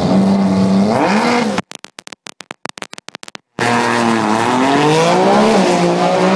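Drag racing car engine holding steady revs on the start line, rising briefly about a second in. The sound then chops in and out for about two seconds, as if the microphone is overloading. When it comes back, the engine note falls and rises in pitch as the car runs away down the strip.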